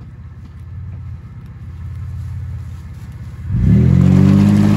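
Off-road vehicle's engine running, then revved hard about three and a half seconds in and held at high revs as the vehicle strains to move.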